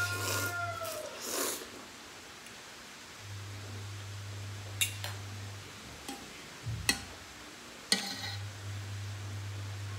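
Eating at the table: slurping noises near the start, then a few sharp clinks of a metal spoon and fork against a ceramic bowl and pot as soup is ladled. A rooster's crow trails off in the first second, and a low hum comes and goes.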